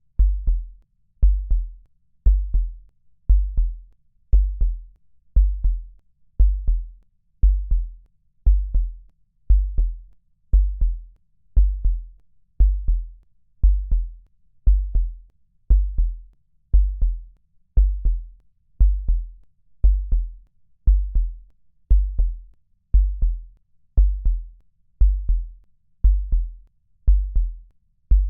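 Slow, steady electronic beat: a deep bass-drum thud with a short click on top, repeating about once a second, each thud dying away quickly.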